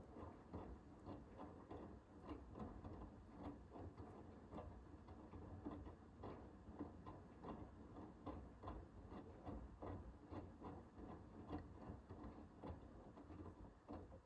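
Hoover H-WASH 500 front-loading washing machine's drum tumbling during the wash of a Cotton 60 programme: laundry and water sloshing with a faint, irregular patter of light clicks over a low rumble. The drum stops abruptly at the end.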